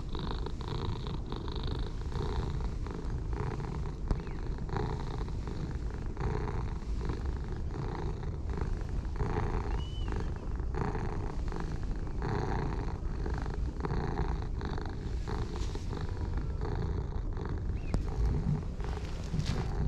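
Ginger tabby cat purring steadily while being stroked, the purr coming in regular repeated swells; the cat is purring with pleasure at the petting.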